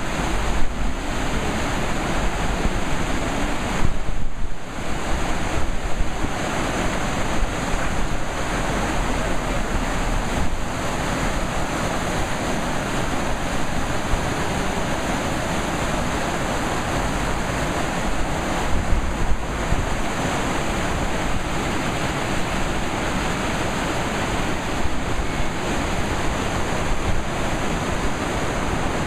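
Fast-flowing river rushing over rocky rapids and weirs: a steady, loud wash of white water.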